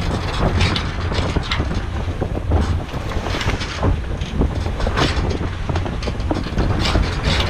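Wind buffeting the microphone over the rush of water along a sailing yacht's hull under way, with irregular sharp slaps and knocks.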